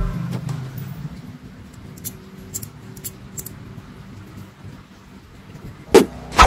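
A few faint small clicks, then two sharp knocks about half a second apart near the end.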